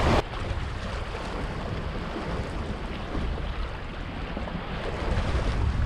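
Small waves washing up the sand at the water's edge, with wind buffeting the microphone and a brief louder rush right at the start.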